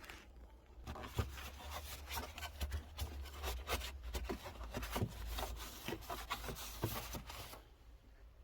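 Air filter and its plastic housing being handled by hand: a run of rubbing, scraping and clicking that starts about a second in and stops near the end.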